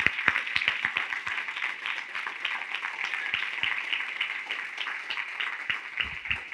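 Congregation applauding: many hands clapping in a steady patter that slowly thins out.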